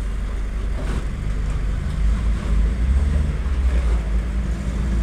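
Box truck's engine running at low revs as it backs up slowly, a steady low rumble that grows a little louder about two seconds in, with wind buffeting the microphone.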